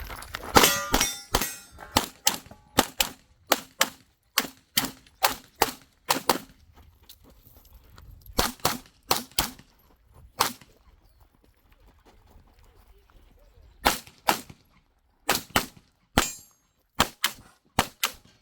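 Pistol shots fired in quick strings, mostly pairs and fast runs about three a second, with a pause of about two seconds midway and a longer one of about three seconds, typical of a USPSA competitor engaging targets, reloading and moving through a stage.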